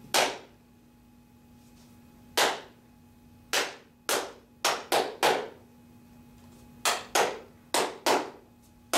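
One person clapping hands, about eleven sharp claps in an uneven rhythm: a single clap, a long gap, then a quicker run of claps and two pairs. It is one clap per note of a written rhythm exercise, with silence through the held notes and rests.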